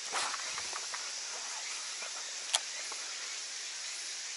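Steady high hiss of outdoor ambience, with a few faint knocks in the first second and one sharp click about two and a half seconds in.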